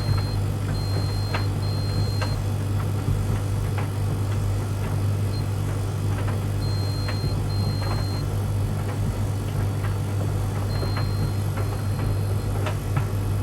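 A tumble dryer running with a steady low hum. Over it, the Beko Aquatech washing machine's control panel gives short high beeps in small groups, three times, along with light clicks as the program dial and buttons are worked.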